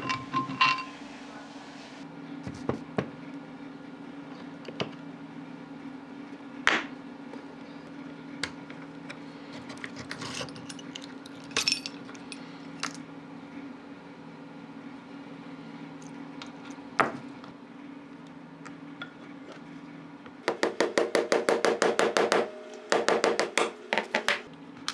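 Steel parts of an old metal lathe handled and worked by hand: scattered metallic clicks and knocks, then near the end two bursts of rapid clicking, about ten a second, over a steady low hum.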